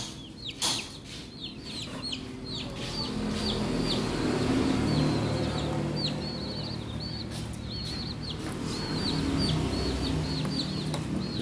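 Young chicks peeping: many short, high cheeps with a falling hook, repeating over and over, over a low steady rumble. A couple of sharp taps right at the start.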